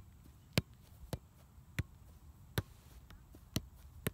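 Soccer ball being juggled: sharp thuds of the ball striking foot and knee, about seven touches at an uneven pace of roughly one every half second to a second.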